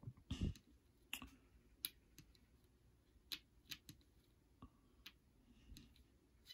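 Faint, scattered clicks and taps of wargame counters being handled on the map, about eight in all, the loudest about half a second in.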